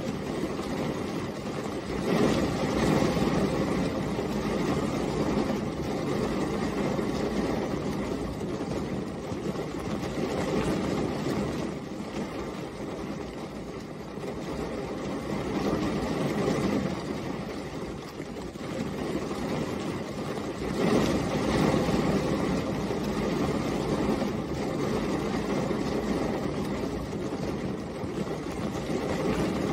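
Steady rain falling, an even low hiss that swells louder about two seconds in and again around twenty-one seconds.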